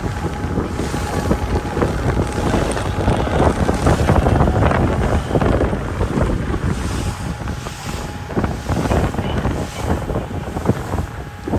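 Strong wind buffeting the microphone in uneven gusts, with the rush of sea water underneath.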